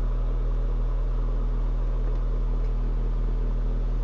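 Steady 40 Hz sine test tone played through a prototype transistor audio amplifier, a deep, unchanging low hum.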